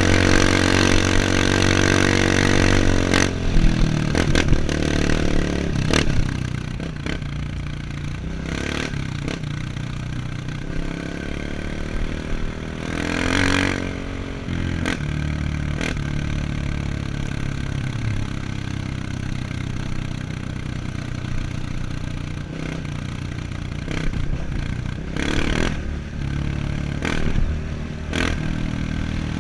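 Off-road trail motorcycle engine running under way. It is louder and revving higher for the first three seconds, then eases to a lower, steadier note, with frequent clattering knocks throughout.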